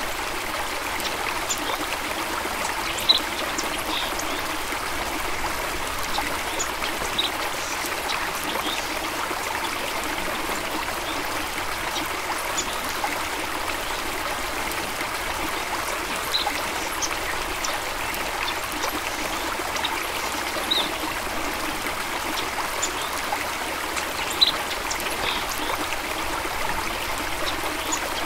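Small stream running and trickling steadily over stones, with scattered little splashes and drips.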